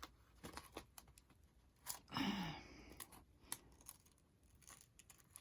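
Scissors snipping and clicking in short, scattered strokes as they struggle to cut through the material. A brief low murmur comes about two seconds in.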